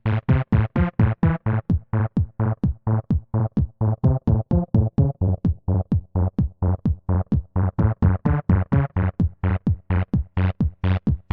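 Electronic background music: a fast, even pulse of short, clipped synth notes, about four or five a second, over a low bass line.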